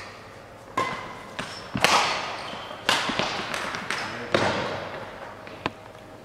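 Badminton rally: racket strings striking a shuttlecock about six times, roughly once a second, each hit echoing in a large sports hall.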